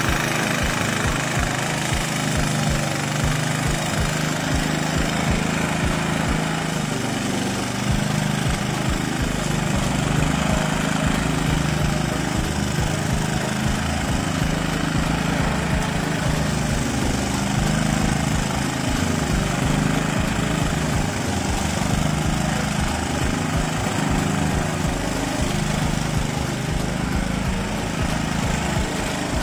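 Small petrol grass-cutting machine running steadily while cutting grass, its engine note rising and falling slightly.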